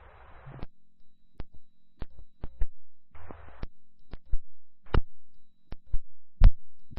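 Emergency scanner radio between transmissions: a burst of static that cuts off sharply, then irregular sharp clicks and pops as radios key up and unkey, with one more short burst of static, over a faint steady hum.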